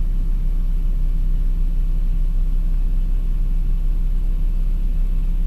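A steady low mechanical rumble with a hum, with no change in level.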